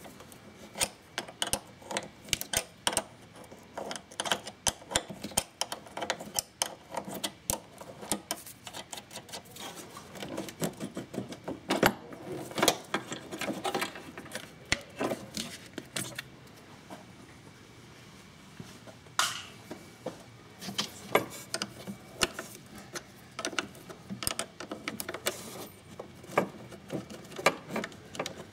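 Irregular small metallic clicks and knocks from hand tools and fingers working a car battery's terminal clamp. They are dense for the first half, then sparser with a short lull in the middle.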